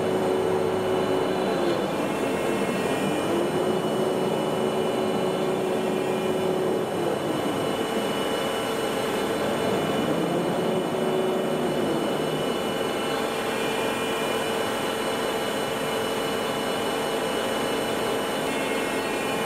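Waldrich Siegen double-column CNC milling and boring machine running under power: a steady hum with a whine that rises, holds and falls about three times as the axis drives speed up, traverse and stop.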